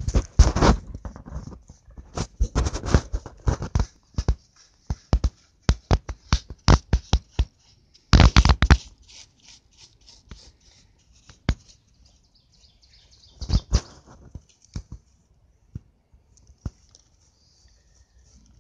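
Stiff paintbrush scrubbing grit and rock dust out of a fluorite pocket: bursts of quick, gritty scratching strokes of bristles on rock. The strokes come in runs during the first half, once more briefly about two-thirds of the way in, and thin out to a few scattered ticks near the end.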